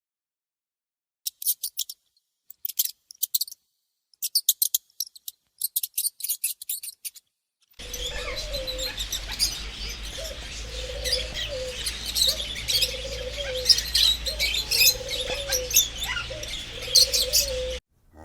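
Small birds chirping in rapid high-pitched bursts. About eight seconds in, a second recording starts: dense bird chirping over a steady low hum, with a lower call repeating roughly every second.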